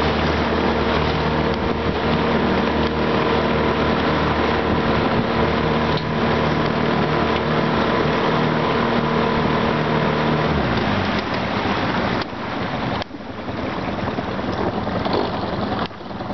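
Boat's outboard motor running at speed with wind and water rushing past. About ten seconds in the engine note drops away, leaving wind and water noise that fades as the boat slows.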